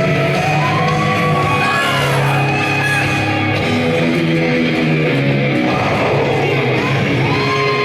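Loud rock music with electric guitar and a shouted, sung vocal line, playing steadily.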